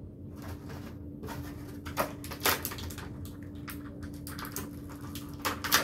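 Clear plastic packaging being handled, giving an irregular run of crinkles and sharp clicks, the loudest about two seconds in, half a second later, and again near the end.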